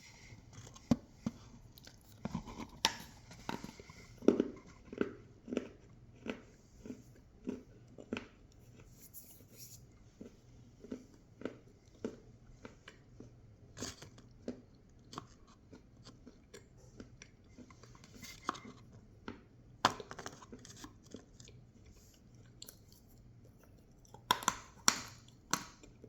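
A person chewing crunchy food close to the microphone: a steady run of chews at about two a second, broken by louder crunching bites a few times, with a cluster of them near the end.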